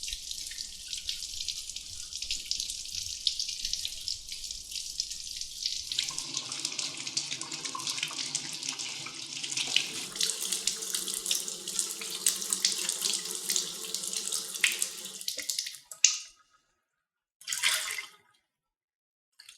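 Water running from a tap into a sink as a steady rush. Its sound fills out and grows fuller about a third of the way in, and it stops abruptly well before the end. After it stops come two brief splashes.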